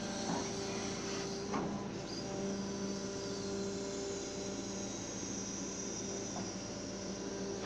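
Mini excavator running while digging: a steady engine and hydraulic hum with a faint higher whine, and a few light knocks.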